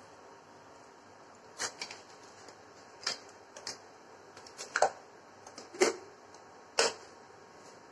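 About six sharp, separate clicks at irregular intervals, roughly one a second towards the end, over a low steady hiss.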